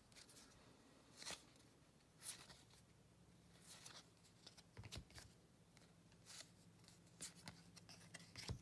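Faint soft flicks and slides of baseball trading cards being thumbed off a stack one at a time, roughly once a second, over a low steady hum.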